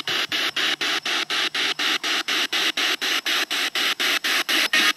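Spirit box sweeping through radio frequencies: a hiss of static chopped into even bursts, about six a second.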